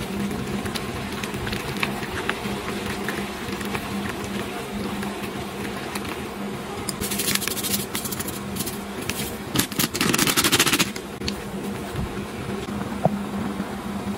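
Noodle broth simmering in a wok on an induction cooktop: a steady low hum with small crackling clicks of bubbling. About halfway through come two brief hissing rushes as seasoning is poured in from a bag.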